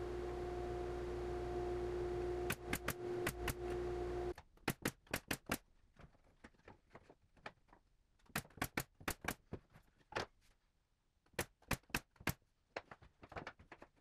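Pneumatic nailer firing in quick bursts of several sharp shots, fastening wooden drawer-glide strips to a cabinet panel. A steady motor hum stops abruptly about four seconds in.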